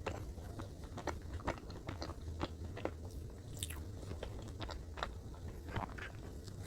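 Close-miked chewing of Godiva salted caramel chocolate cake, with irregular small crunches and wet mouth clicks.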